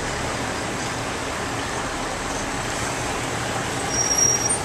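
Steady city street noise, a continuous hum of road traffic. Near the end it briefly grows louder and a short, high, thin whistle sounds.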